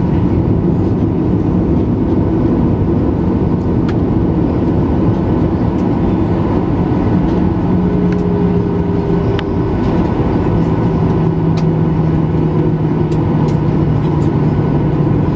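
Boeing 737-900ER cabin noise while taxiing: the CFM56-7B engines run steadily at low thrust under a dense rumble, with a few faint hum tones that drift slightly lower about halfway through, and scattered light ticks.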